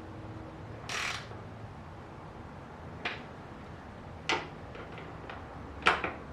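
Motorcycle seat and its fittings being handled and refitted: a short scraping rustle about a second in, then a few separate sharp clicks and knocks, one near the end doubled.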